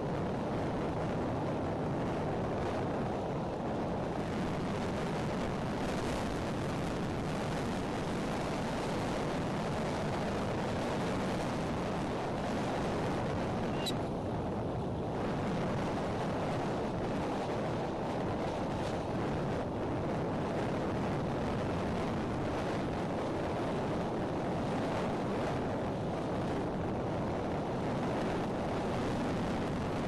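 Strong wind blowing steadily across the microphone of an outdoor nest camera, a constant rushing noise, with one brief faint click around the middle.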